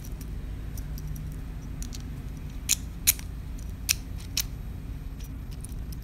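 Small clicks and ticks of RC helicopter tail rotor hub parts, metal and plastic, being handled and turned in the fingers after their bearings have been greased, with four sharper clicks around the middle.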